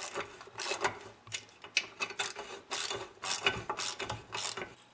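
Socket ratchet clicking in short bursts, about two or three a second, as muffler bolts are tightened into new Heli-Coil thread inserts in an engine's exhaust port.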